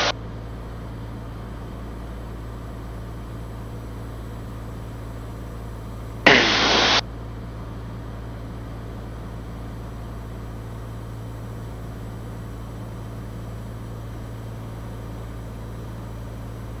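Cirrus SR20's single piston engine and propeller droning steadily in cruise descent, a low, even hum. About six seconds in, a sharp burst of hiss lasts under a second.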